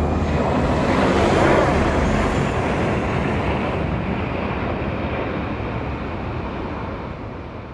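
Aircraft passing overhead: a rushing engine noise that peaks about a second and a half in, then fades steadily as it flies away.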